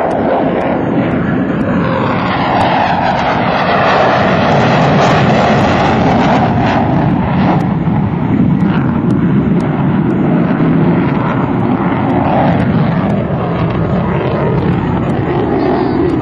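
Jet noise from an F-15 Eagle's twin Pratt & Whitney F100 turbofans as the fighter flies by overhead: a loud, continuous rushing rumble that swells a little a few seconds in, its pitch shifting as the jet moves.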